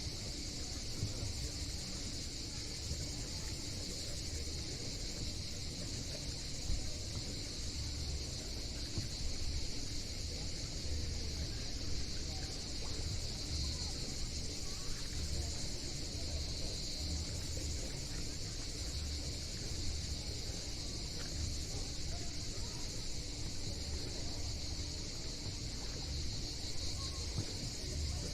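Steady, continuous high-pitched chorus of summer insects, over a low, uneven rumble.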